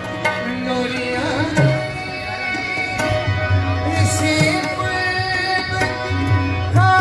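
Live qawwali music: a harmonium holding steady notes over tabla drumming, with a voice singing along at times.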